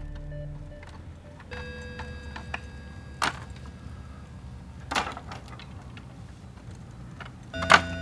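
Wooden planks knocking together as boards are handled and stacked: three sharp knocks, the loudest near the end, over faint sustained tones.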